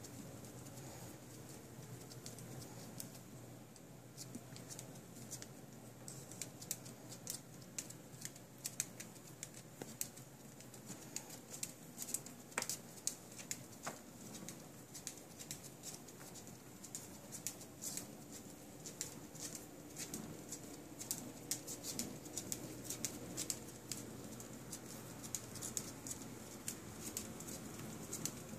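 A small dog's claws clicking on a laminate floor as she walks about: irregular light ticks, growing busier after the first few seconds.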